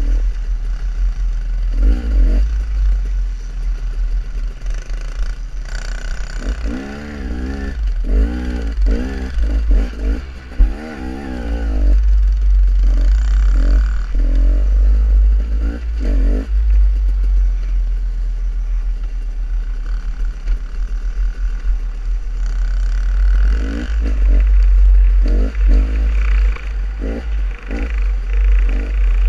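Dirt bike engine revving up and down in quick bursts while riding over rocky single track, under a steady low rumble, with clatter and scrapes from the rocks.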